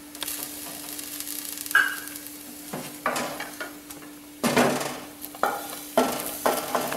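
Spoon and steel utensils scraping and knocking against a nonstick kadai and a stainless-steel mixer-grinder jar as the roasted coconut masala and soaked poppy seeds go into the jar: a string of sharp scrapes and clinks, the loudest about four and a half seconds in, over a steady low hum.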